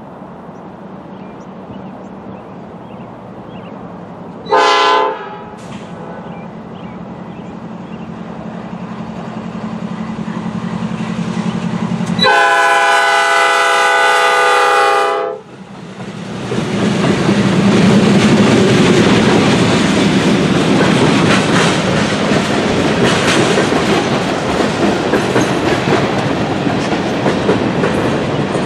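Two GE diesel freight locomotives, a CN C44-9W and a C40-8, approaching with a steady engine drone, then sounding the horn: one short blast about four and a half seconds in and one long blast of about three seconds around twelve seconds in as they come close. The locomotives then pass and the freight cars roll by with a loud rush of wheels on rail and a clickety-clack over the rail joints.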